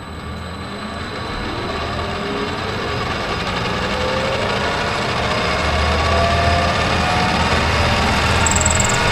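Metal lathe starting up, its spindle speeding up: a rising whine over a motor hum that grows louder, then runs steadily near the end.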